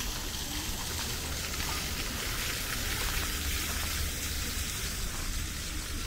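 Park fountain spraying and splashing into its basin: a steady rush of falling water.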